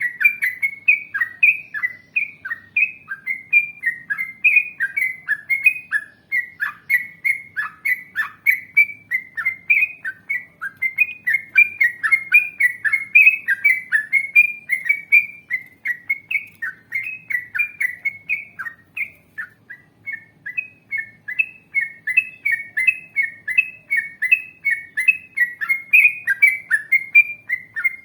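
Yellow-vented bulbul (trucukan) singing without a break: a long run of short, bubbly whistled notes, about two or three a second.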